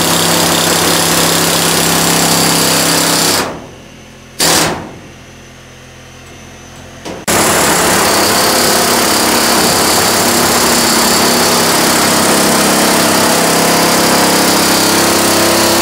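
Pneumatic air hammer with a sheet-metal cutting bit, rattling as it cuts through galvanized steel ductwork. It stops about three and a half seconds in, gives one short blip, then starts up again about seven seconds in and keeps cutting.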